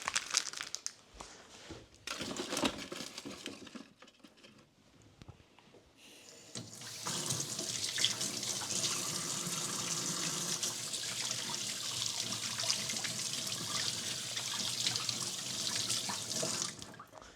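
A few seconds of crinkling and rustling handling noises, then water running steadily from a tap into a sink for about ten seconds before it is shut off.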